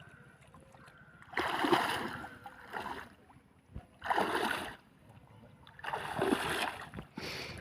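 Water splashing in repeated bursts: three long splashes and a short one near the end.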